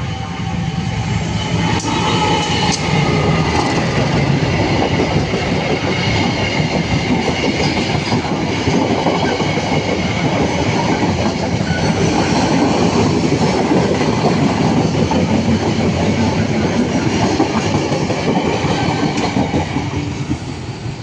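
Train passing close by, its wheels clattering over the rail joints in a loud, steady rush, with a faint high squeal in the first few seconds.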